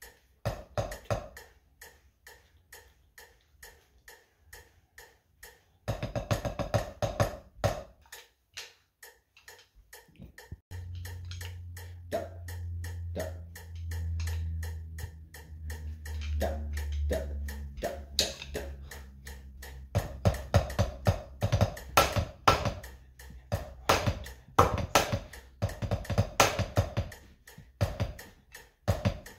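Drumsticks playing rudiment exercises on a rubber practice pad over a steady metronome click, the strokes coming in rhythmic runs with pauses between. A low steady hum sounds in the middle.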